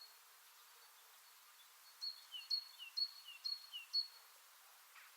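A songbird repeating a quick two-note phrase, a high note then a lower downslurred one, about four times between two and four seconds in, over a faint outdoor hiss.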